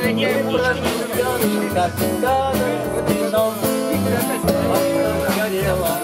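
Live folk band playing an instrumental passage: strummed acoustic and electric guitars over a steady bass line.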